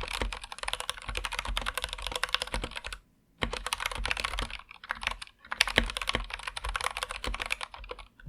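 Fast typing on an Anne Pro 2 mechanical keyboard with linear Gateron Red switches: a dense stream of key clacks, with a brief pause about three seconds in and a few short gaps about five seconds in, stopping at the end.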